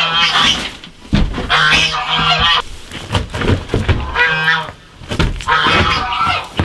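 Geese honking, several loud bouts of calls in quick succession.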